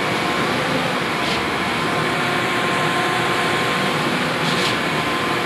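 A machine running steadily: a constant mechanical noise with faint steady tones, and two brief hisses, about a second in and near the end.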